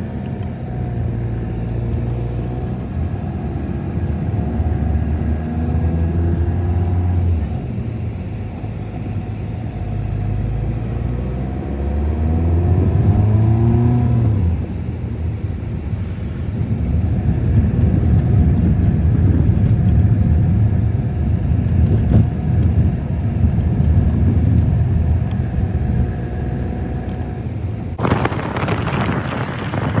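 Inside the cabin of a Skoda Octavia 1.9 TDI, a four-cylinder turbodiesel, engine and road noise while driving. The engine note rises and falls a few times as the car pulls away and changes speed. About two seconds before the end it cuts to wind noise on the microphone outside.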